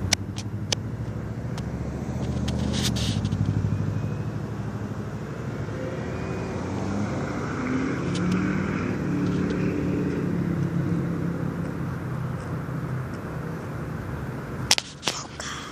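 Motor vehicle engine running nearby, a steady low hum whose pitch shifts up and down through the middle. A few sharp clicks sound at the start and a cluster near the end.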